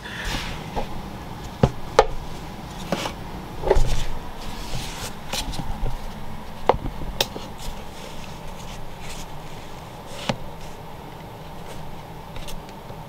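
Irregular light clicks and knocks from a plastic cup being handled, with the strongest few in the first four seconds, over a steady low hum.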